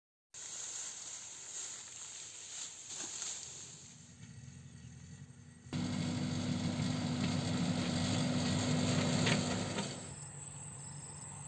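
An engine running with a steady low hum, louder for a few seconds from about six seconds in, then dropping back.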